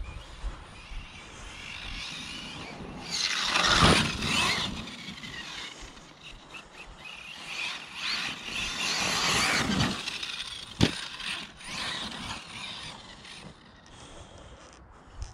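Arrma Mojave RC desert truck's electric motor and drivetrain whining as it speeds across the grass, in two bursts that rise and fall, a few seconds in and again near the middle. A single sharp knock comes just after the second burst.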